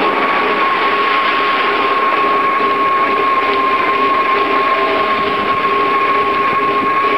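A bicycle riding along a paved street, heard from a camera mounted on the bike: a steady rushing noise of tyres, wind and vibration, with a thin, steady high whine running through it.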